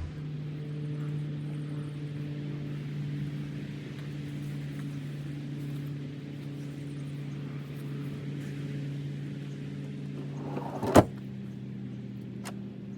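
Steady low motor hum, with a single sharp click about eleven seconds in, after which the hum carries on at a slightly higher pitch.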